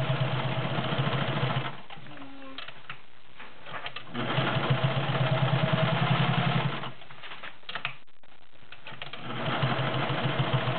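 All-metal, gear-driven Singer 500A Slant-O-Matic sewing machine stitching through very stiff upholstery fabric, in three runs of a few seconds each, stopping twice with a few clicks in the gaps.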